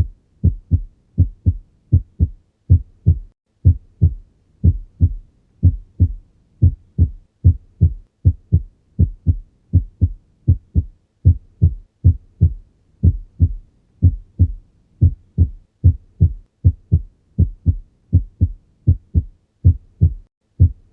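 Human heart sounds heard by cardiac auscultation: a steady lub-dub, two short low thumps per beat, at a little over one beat a second.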